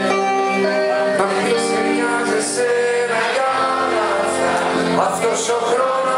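Live band playing a song: sustained chords with a melody line over them.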